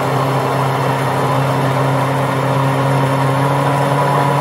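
Electric stick blender running steadily at one even pitch in a glass measuring jug, puréeing a thin yellow curry sauce.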